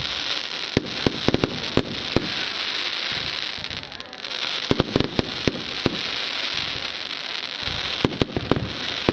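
Aerial fireworks going off: a steady crackling hiss with clusters of sharp bangs, one group about a second in, another around the middle, and more near the end.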